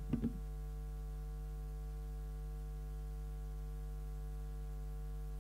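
Steady electrical mains hum with many overtones, with a brief faint sound at the very start.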